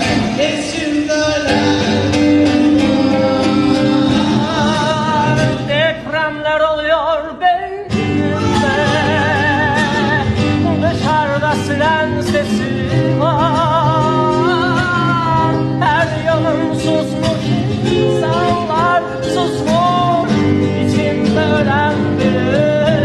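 Music: a song with a solo voice singing with heavy vibrato over instrumental accompaniment. The accompaniment drops out for a moment about six seconds in and comes back about two seconds later.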